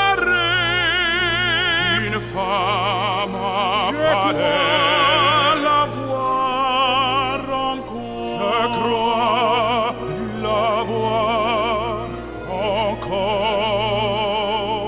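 Background music: an operatic solo voice singing a slow line of long held notes with a wide vibrato.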